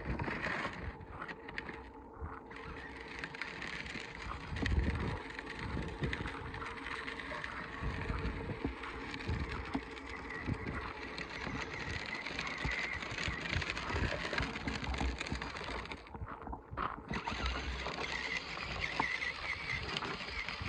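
Battery-powered toy ride-on motorcycle driving over gravelly dirt: its hard plastic wheels roll and crunch steadily with the small electric drive running.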